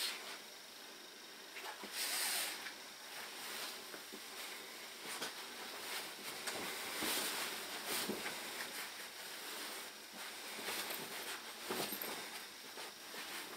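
Leather clothing rustling and creaking as the wearer moves, with small clicks and handling noises; the rustles swell about two seconds in and again around seven to eight seconds.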